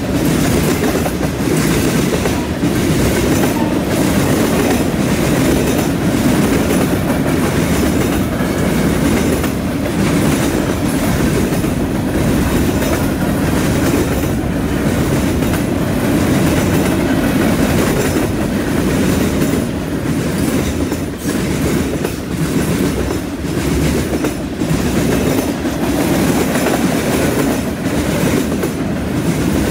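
Freight train of tank cars and covered hoppers rolling past close by: a steady heavy rumble of steel wheels on rail, with a running clatter of clicks as the wheels pass over the track.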